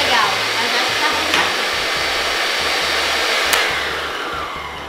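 Arno electric stand mixer running with its beaters turning in the bowl, a steady motor whine. About three and a half seconds in, a click: it is switched off, and the whine falls in pitch and fades as the motor spins down.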